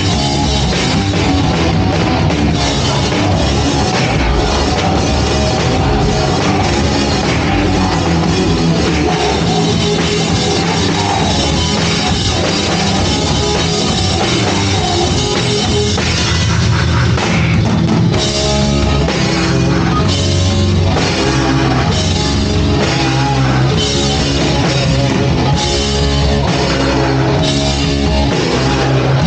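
Live punk band playing loud and dense, drums driving under distorted guitar; about two-thirds of the way through the music breaks into a choppier, stop-start riff.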